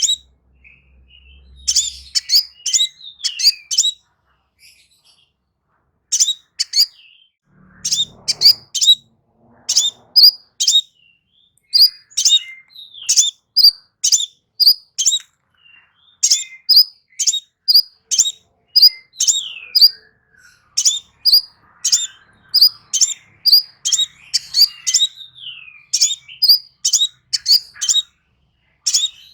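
Crimson sunbird singing: rapid runs of very high, sharp chirping notes in bursts, broken by short pauses.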